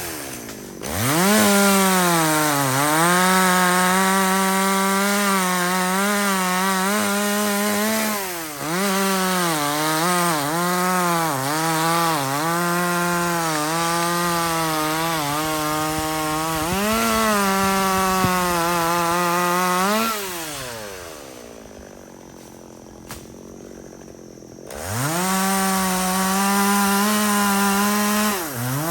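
Two-stroke chainsaw at full throttle cutting into a kapok tree. Its pitch dips and wavers as the chain bogs in the wood. About twenty seconds in it drops back to idle for a few seconds, then revs up again and falls off near the end.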